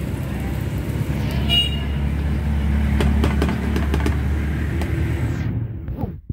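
Street traffic: a motor vehicle runs past close by with a low rumble, and a short horn toot sounds about a second and a half in. A few light clicks come in the middle, and the sound fades out near the end.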